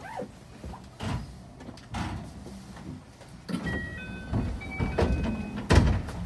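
Electric commuter train standing at a station platform: a few sudden thumps, the loudest near the end, with short high chime-like tones in the middle.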